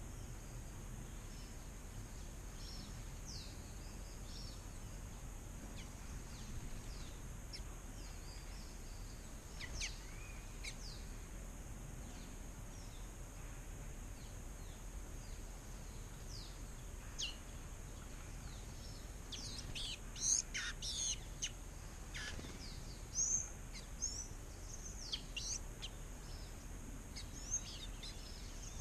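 Small songbirds giving short, high chirps and quick down-slurred call notes, scattered at first and much busier in the second half, over a steady high hiss of background noise.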